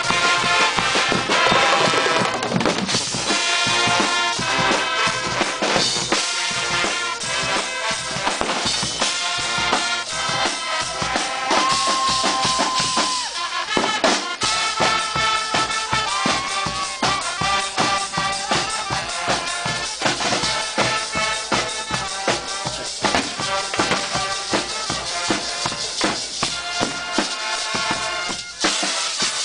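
Guggenmusik band playing: a brass section sounding held notes over a driving beat of bass drum and snare drum.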